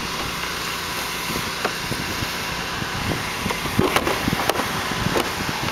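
Steady background street noise, with a few sharp clicks and knocks about four to five seconds in as the jump-starter box and its clamps are handled at the battery.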